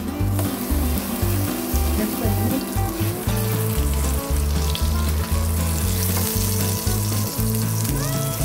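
Egg-battered jeon sizzling steadily in hot oil in a nonstick frying pan, with background music underneath.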